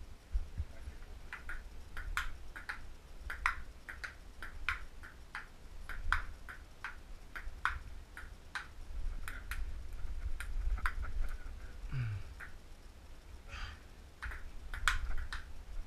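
A table tennis rally: the ball clicks sharply off the paddles and the table in a quick, even rhythm of about two to three hits a second. It breaks off briefly about twelve seconds in, then the hitting starts again.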